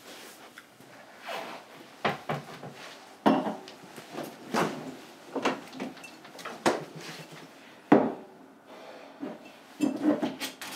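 Kitchen clatter of dishes and utensils being handled at the counter: a series of separate knocks and clinks roughly a second apart, after a quiet start.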